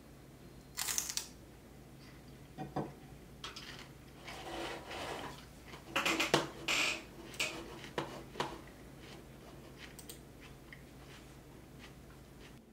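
Crunching of raw celery being bitten and chewed, mixed with scattered clicks from a computer keyboard and mouse. The crunchiest bursts come about a second in and again around six to seven seconds in.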